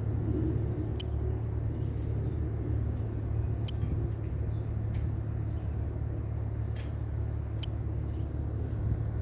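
Steady low rumble with a constant low hum, broken by a few faint, short clicks.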